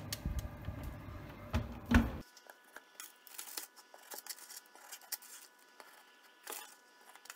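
Metal baking tray sliding on an oven rack with a rustle of baking paper, ending in a loud knock about two seconds in. Then light scrapes and taps of a wooden spatula lifting baked buns off baking paper onto a wooden board.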